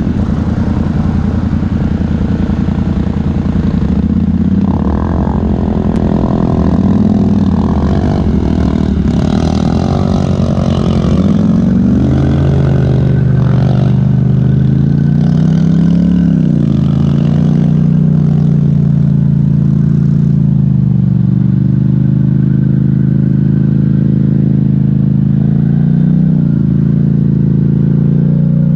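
Polaris Sportsman 1000 ATV engine chugging along at low speed, the throttle opened and eased off several times so the engine note rises and falls, clearly around the middle and again near the end.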